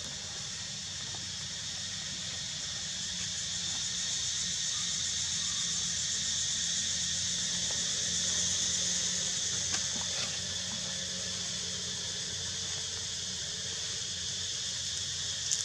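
A steady high-pitched hiss or buzz over a low steady hum. The hiss swells toward the middle and eases off again, with a few faint ticks near the end.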